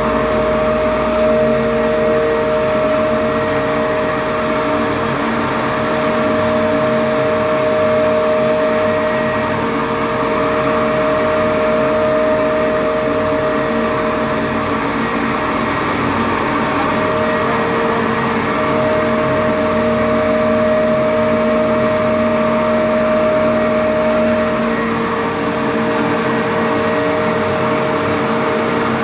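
Rice husk grinding machine running steadily: a loud, even rush of noise with a steady whine over it.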